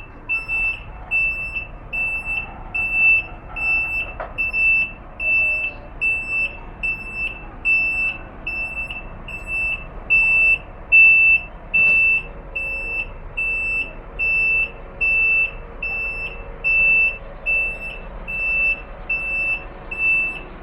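Truck reversing alarm: a single high-pitched beep repeating evenly about twice a second, over a low engine rumble.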